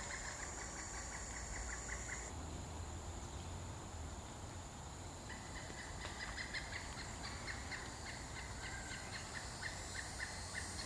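Pileated woodpecker calling: a long, even series of rapid 'wuk' notes, about five or six a second. The series breaks off about two seconds in and starts again about five seconds in. A steady high insect drone runs underneath.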